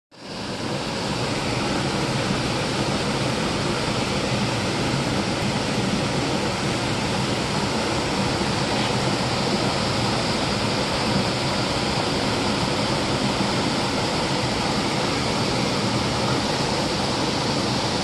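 Mountain stream cascading over rocks into a pool: a steady, unbroken rush of falling water.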